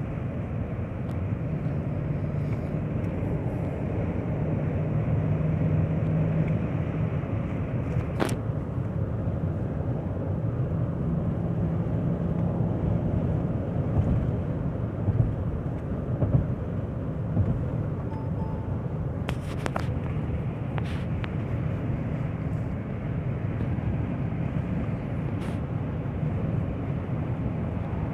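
Car being driven on a road test for an engine misfire: a steady mix of engine and road noise, with a few brief clicks.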